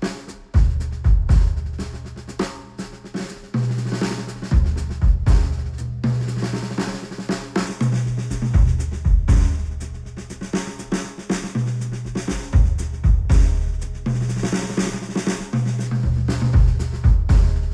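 Music played back through studio headphones and picked up by microphones: a drum kit with kick, snare and hi-hat keeping a steady beat over deep held bass notes that change every second or two.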